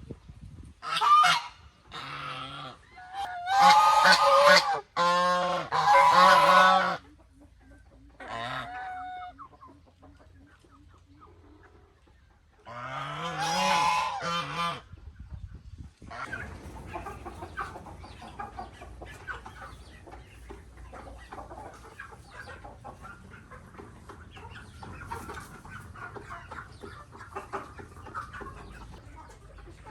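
Chickens: several loud drawn-out crows and calls in the first half, then a flock clucking and chattering steadily.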